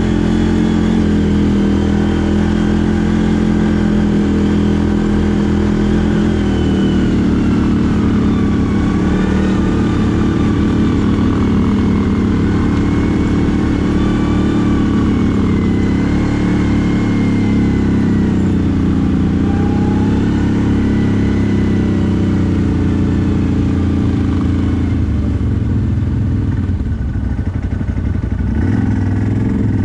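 CFMoto 1000 ATV engine running continuously while riding, its pitch rising and falling gently as the throttle changes.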